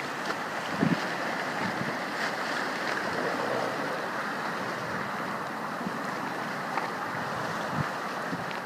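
Steady rush of ocean surf washing around shoreline rocks, with wind on the microphone and a couple of brief low thumps.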